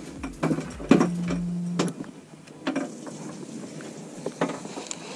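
Sharp knocks and clicks from handling gear aboard a bass boat, the loudest about a second in, with a short steady low hum that stops just before two seconds in.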